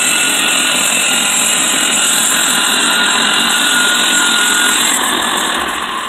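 Mr. Sawmill Model 30 portable band sawmill, its gasoline engine running at full speed while the band blade saws lengthwise through a log as the head is pushed along. The sound is a loud, steady machine noise that eases slightly near the end as the cut finishes.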